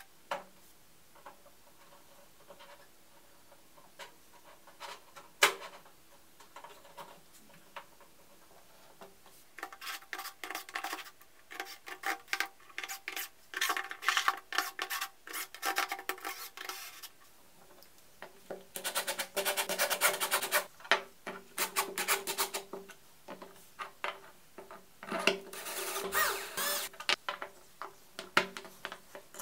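3D-printed plastic parts being handled and fitted together: scattered clicks and knocks, then stretches of scraping and rubbing. A sharp knock about five seconds in is the loudest sound, and the handling is busiest through the middle and again near the end.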